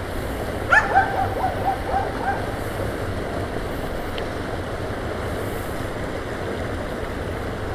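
Steady rush of a shallow stream spilling over a small concrete weir. About a second in, a short run of quick, pitched notes sounds over it and fades out after a second or so.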